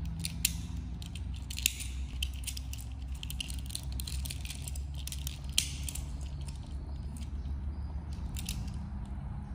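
Hard plastic clicks and clacks of a Transformers Crash Combiner Optimus Prime figure being transformed by hand from vehicle into robot, its parts snapping into place. The clicks come thick over the first six seconds and a couple more near the end, over a steady low hum.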